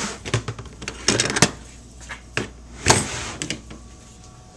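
Handling noises as things are moved about: a scatter of clicks, knocks and rustles from plastic containers, with a louder clunk about three seconds in.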